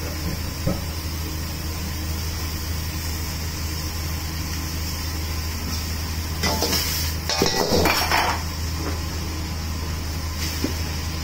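Metal ladle scraping and clanking against a steel wok while stir-frying pork and carrots, a cluster of strokes a little past the middle, over a steady low hum.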